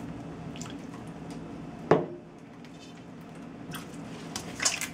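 Hands kneading millet-flour dough in a stainless steel bowl: soft squishing and pressing, with one sharp knock against the bowl about two seconds in and a few light clicks near the end.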